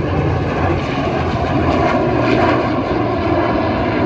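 Steady engine drone of a propeller warbird and a jet fighter flying overhead together in formation.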